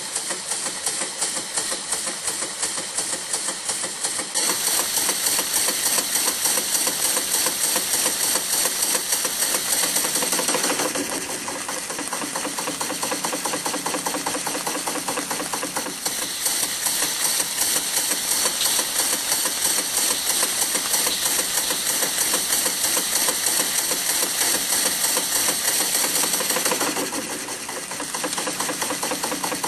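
1971 Bio-Fiz educational model steam engine running at a steady speed: a rapid, even mechanical clatter from its cylinder and valve gear with a hiss over it. It gets louder about four seconds in.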